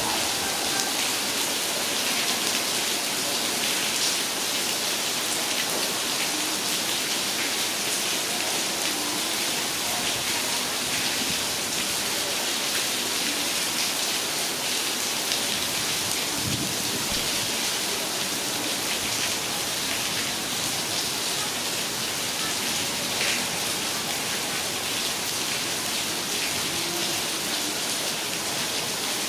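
Steady heavy rain falling, an even hiss of drops that keeps up without a break.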